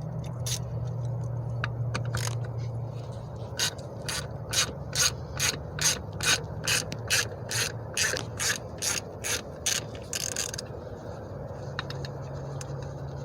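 Ratchet wrench with a T30 Torx socket clicking as it backs out a seat-latch bolt. The regular clicks come about three a second for several seconds, with a brief rasp at the end as the bolt comes loose.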